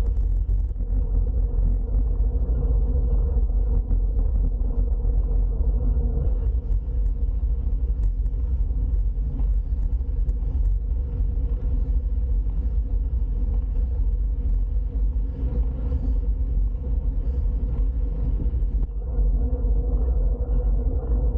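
Steady low rumble of wind on a handlebar-mounted camera's microphone while riding a bicycle along a road, mixed with tyre and road noise. A rougher, brighter hiss joins from about six seconds in and drops away again about two seconds before the end.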